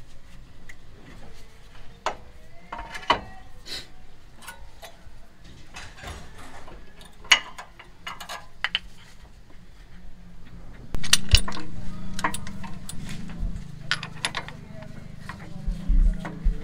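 Metal clinks and knocks of a brake caliper and hand tools being handled and fitted over the disc, in scattered single strikes. About eleven seconds in, a louder low hum comes in and fades over a few seconds.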